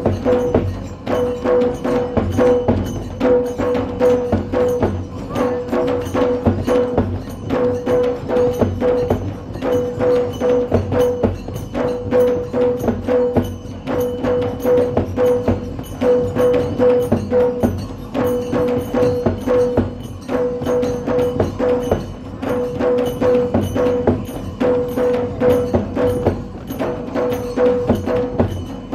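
Large double-headed dhol drums beaten in a fast, steady rhythm. A ringing note repeats in short runs over the beats.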